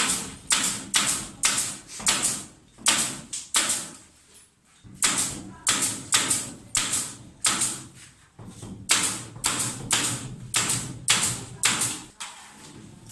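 Steady hammering: sharp blows about two a second, each with a short ring, with a brief pause about four seconds in and stopping near the end.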